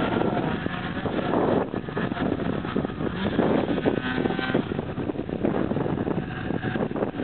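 Snowmobile engines running hard at high revs as a Ski-Doo MXZ climbs through deep powder and passes close by, loudest about four seconds in.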